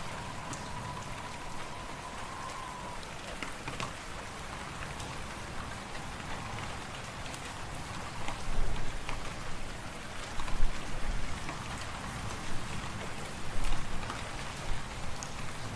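Wood fire in a fireplace crackling, scattered sharp pops over a steady hiss, with wind blowing; a faint whistle of wind in the first few seconds, and gusts rumbling low and loud from about halfway through.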